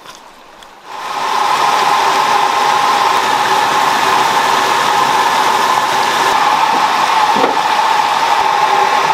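Water pouring from outlet pipes into concrete eel tanks, a loud steady rushing and splashing that starts about a second in.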